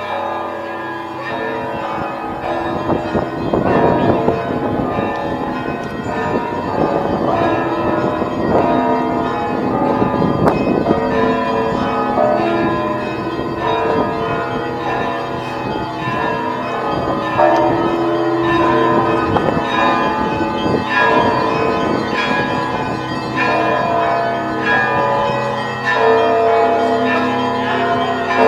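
Church bells ringing together, many bells struck in quick, overlapping succession so that their tones blend into one continuous peal.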